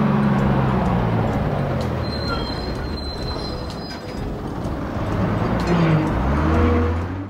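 Bus engine and road noise as a large vehicle drives by. The engine note falls away at first and rises again near the end, then cuts off abruptly.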